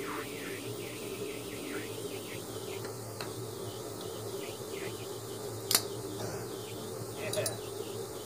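Wrench work on an engine fitting: a steady hum and hiss, with one sharp metallic clink of the wrench about six seconds in and a few lighter clicks a little later.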